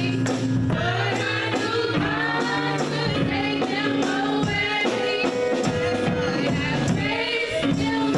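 Gospel music: voices singing over a band, with a tambourine keeping the beat.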